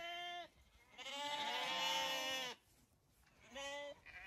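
Zwartbles sheep bleating behind the gate: three separate calls, a short one at the start, a long one about a second in, and another short one near the end.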